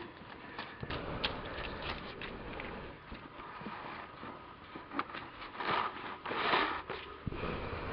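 Footsteps crunching and scuffing in wet snow and slush, with irregular small clicks and a louder rough crunching stretch about two thirds of the way in.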